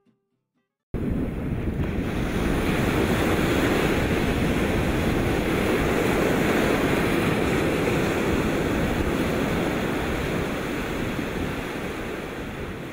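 A loud, steady rushing noise like surf or wind, with no pitch or rhythm. It starts abruptly about a second in and slowly fades toward the end.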